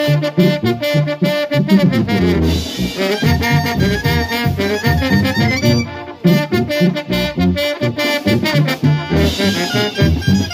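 Banda music in an instrumental break with no singing: brass (trumpets and trombones) playing the melody over a rhythmic low bass line and drum hits.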